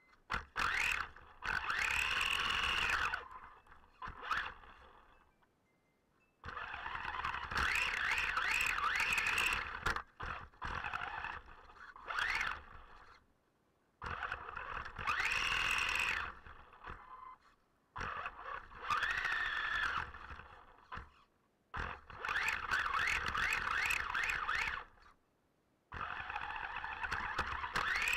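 RC car's motor, heard from a camera mounted on the car, whining in repeated bursts of throttle. The pitch rises and falls within each burst, and short silences fall between bursts.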